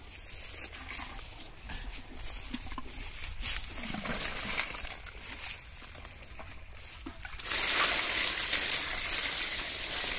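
Scattered rustling and light knocks as live fish are dropped and handled into a woven bamboo basket; about seven and a half seconds in, a loud steady splashing rush of water poured over the fish in the basket takes over.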